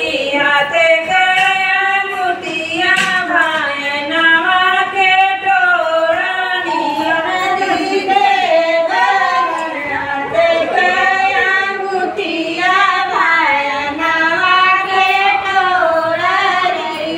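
Women's voices singing a Hindu devotional song together in one unbroken, wavering melody, as part of a Ramayan Katha.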